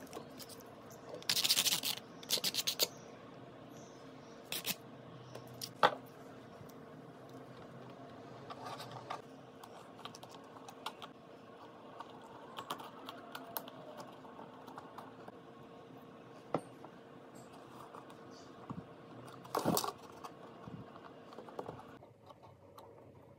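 Wooden popsicle sticks clicking and tapping against each other and the model house as they are handled and fitted into place. There is a quick rattle of clicks about a second and a half in and a few single sharp taps later, over a faint steady hum.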